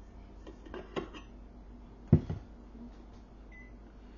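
Metal knocks and clanks from a stand mixer's dough hook and stainless steel mixing bowl as the dough is worked off the hook, with a loud double thump a little over two seconds in as the bowl is set down. Near the end the electric stove's touch control beeps once, set off by a light accidental touch.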